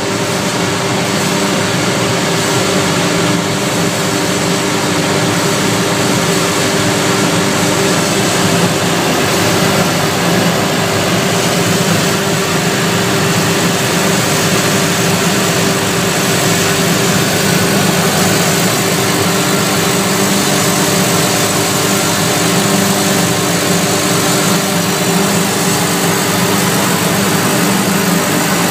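A MIDAS 300 dry separation table running, giving a steady machine hum with a hiss over it as granulated copper moves across and pours off its deck. It starts suddenly and stays even.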